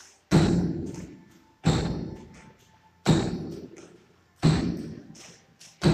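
Feet landing hard during repeated jumps onto and over a wooden plyo box on a rubber gym floor: five heavy thuds about a second and a half apart, each dying away over about a second.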